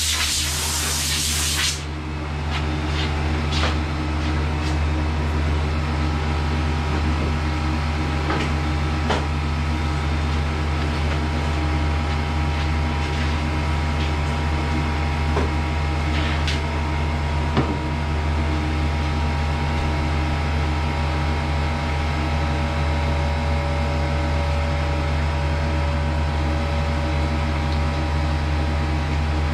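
Compressed air hissing from a blow gun being used to blow dust off a freshly sanded cabinet door, cutting off suddenly about two seconds in. A steady machine hum runs throughout, with a few light clicks as the air hose and spray gun are handled.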